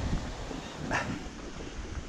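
Small waves washing up a sand beach, with wind buffeting the microphone. A brief, sharp sound cuts in about a second in.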